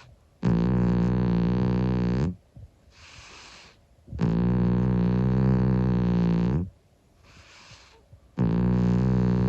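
An elderly calico cat snoring in deep sleep. Three long, droning snores come about every four seconds, each lasting about two seconds, with a soft breath between them.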